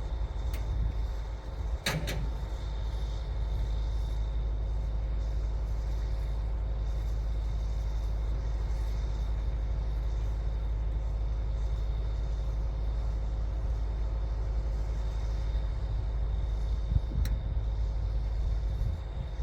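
Cat D9L bulldozer's V12 diesel running steadily under load, a deep rumble with a steady high whine. A brief metallic clatter about two seconds in and a single click near the end.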